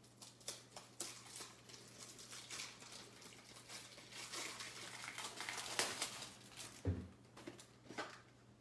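Rustling and crinkling of something being handled, with many small clicks and a dull thump about seven seconds in, over a faint steady electrical hum.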